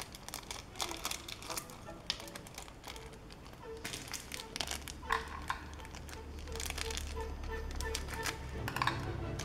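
Plastic seasoning sachets crinkling and being torn open, with quick sharp clicks. Background music with a repeated pulsing note and bass comes in about halfway and grows louder.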